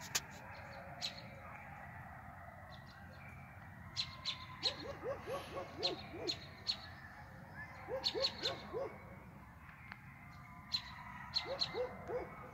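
A large pack of coyotes howling and yipping together, a continuous mass of overlapping wavering calls. Three times, about a third of the way in, around two-thirds in and near the end, it breaks into bursts of quick, short rising yips.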